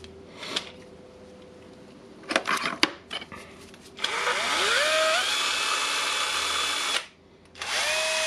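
Small electric air blower blowing dust off a drill armature. After a few light handling clicks and knocks, it spins up about four seconds in with a rising whine under a loud rushing hiss and runs steadily for about three seconds. It cuts off, then spins up again near the end.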